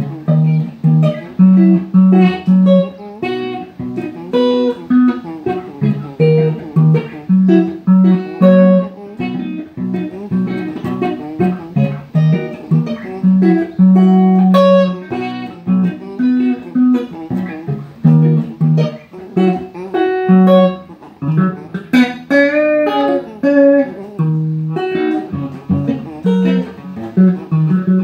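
Electric guitar playing a blues pattern: a repeated riff of short, low plucked notes with higher notes picked over it.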